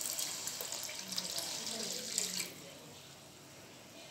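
Water being poured into a pan of thick gram-flour gravy to thin it: a splashing trickle for about two and a half seconds that then dies away.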